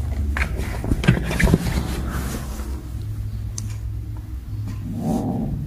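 Kittens scuffling against a cloth cover, with rustling and a few soft knocks in the first second and a half, over a steady low hum.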